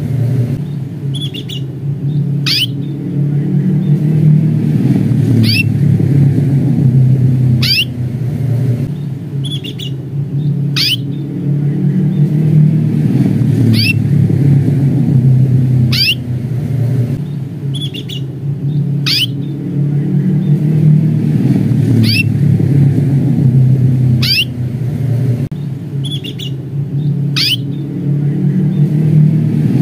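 Young domestic canary giving sharp 'cuit' calls: single quick chirps every two to three seconds, with a few fainter short notes between them. A steady low rumble runs underneath and is the loudest sound.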